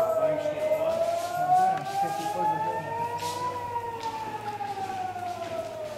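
Civil defence air-raid siren wailing, its pitch rising for about three seconds and then falling again, growing fainter toward the end. It is the rocket-attack warning siren.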